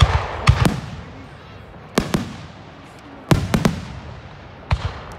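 Aerial fireworks shells bursting overhead: about nine sharp bangs in small groups of one to three, each trailing off in a rolling echo.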